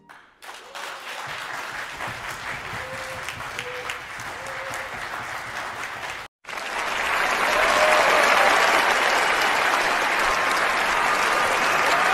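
Audience applauding in a concert hall after a saxophone ensemble performance. About six seconds in, the sound cuts abruptly to a louder burst of standing-ovation applause with some voices in it.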